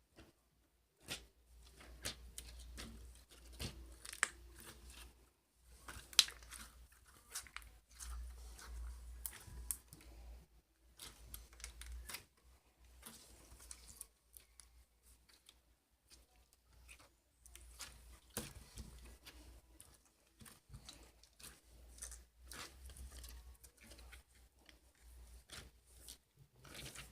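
Slime being worked by hand: crackling, tearing sounds with many small sharp clicks and pops, coming in bursts with short pauses between.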